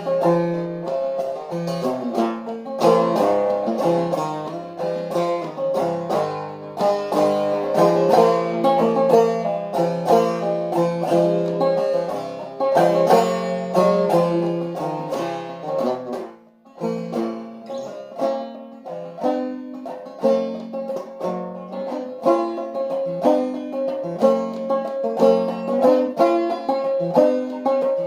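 Five-string banjo played clawhammer style in low open cGCEG tuning, a steady stream of plucked and brushed notes carrying the melody without singing, with a brief break in the playing about halfway through.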